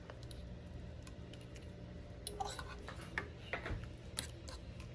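Metal spoon mashing and stirring a baked feta and cherry-tomato sauce in a glass baking dish, giving a few light clicks and taps against the glass, starting about two seconds in.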